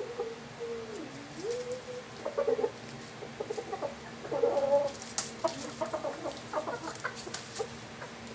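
Gamefowl clucking in a cage: a low wavering call in the first two seconds, then repeated short bursts of clucks, with brief rustles among them.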